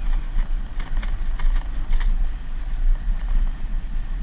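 Dirt bike being ridden over a gravel lane, heard from a camera mounted on the bike: a steady engine note under heavy wind rumble on the microphone, with faint knocks every half second or so.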